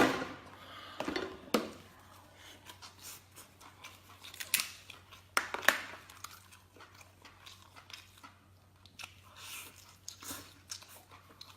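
Close-miked eating: shell claws being cracked open and chewed, with a loud sharp crack at the start, several more cracks through the first six seconds, and softer crunching and chewing between them.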